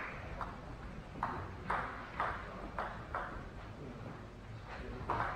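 Table tennis ball bouncing with light, sharp clicks about twice a second, as before a serve. A few louder clicks come near the end.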